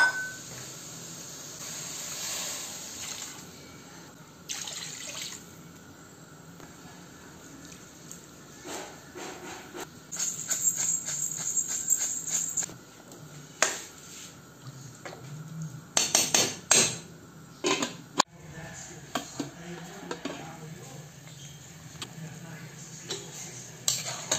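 Kitchen sounds at a stovetop pot: water splashing into the pot, with scattered sharp knocks and clinks of utensils against the pot.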